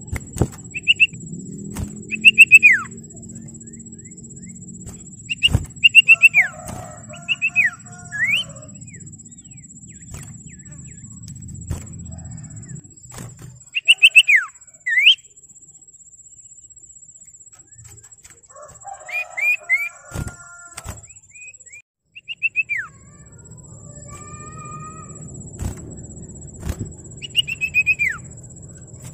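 Common iora (cipoh) calling: loud, sharp whistled notes that sweep downward, given in quick groups of two or three every few seconds, with softer chattering notes between some of the groups. The call is the kind used as a lure to provoke rival birds into answering.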